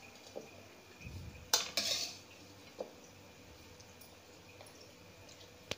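Vermicelli being added to sugar syrup in an aluminium pot: a few light knocks and clinks of a utensil against the pot, the sharpest about one and a half seconds in with a short rustle after it, another tap near three seconds and a sharp click near the end.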